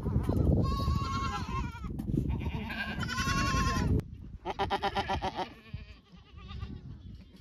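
Goats bleating: several wavering calls one after another, some overlapping. Under them is a low rumble that cuts off about four seconds in.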